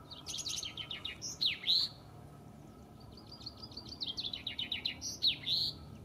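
Male common chaffinch singing two song phrases. Each is a rapid run of high notes ending in the louder flourish typical of chaffinch song.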